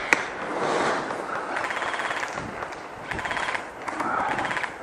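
Airsoft guns firing three short full-auto bursts, each well under a second, with a sharp click just at the start.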